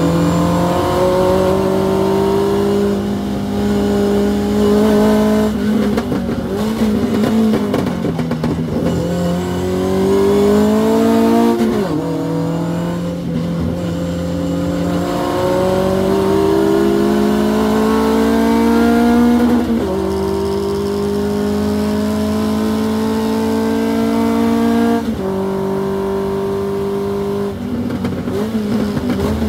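Hillman Avenger race car's four-cylinder engine heard from inside the car under hard acceleration. It revs up and drops in pitch at each upshift, about 12, 20 and 25 seconds in.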